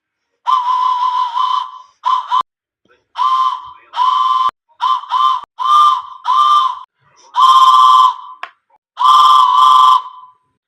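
A whistle blown in about a dozen short, loud blasts of varying length with gaps between them, several of the blasts warbling.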